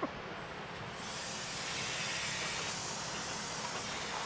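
Steady hiss of compressed air, starting about a second in.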